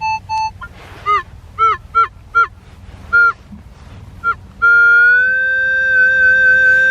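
Metal detector's target tones: a series of short beeps that rise and fall in pitch as the coil is swept over a buried target, then a single long, steady tone from about two-thirds of the way in.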